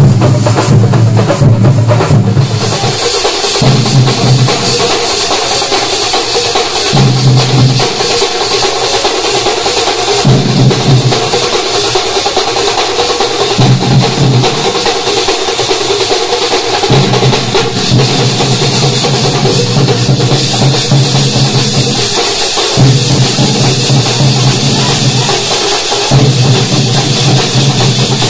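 Loud street percussion music from a festival drum troupe: many drums beaten together, with a deep bass pattern that repeats in blocks of a second or two.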